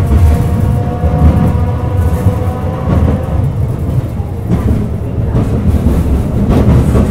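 Sapporo streetcar M100-type car M101 running along the line: a heavy low rumble of wheels on rail, with a steady whine over it that fades out about three seconds in.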